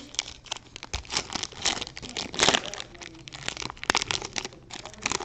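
Foil wrapper of a trading-card pack crinkling as it is handled and torn open: a run of sharp crackles, loudest about two and a half seconds in.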